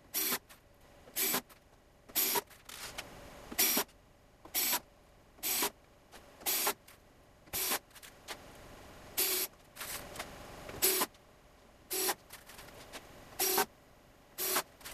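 Cordless drill-driver running in short bursts, about one a second, driving small screws into aluminium T-track.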